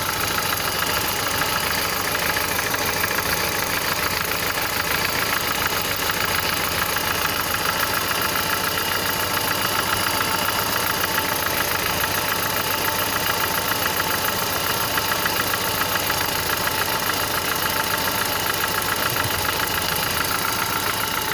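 Car engine idling, recorded close to the cylinder, with a dull, rapid, even knock like a big part striking another big part; the owner thinks it may be the camshaft jumping, and the engine is misfiring.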